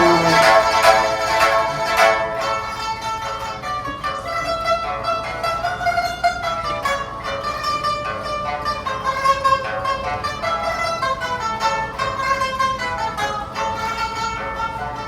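Pipa, the Chinese pear-shaped plucked lute, playing a lively traditional Chinese piece in fast runs of plucked notes. It is loudest in the opening two seconds, then steadier.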